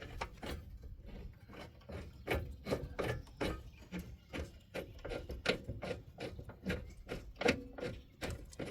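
Hand ratchet wrench clicking in short, irregular strokes as a bolt is run in.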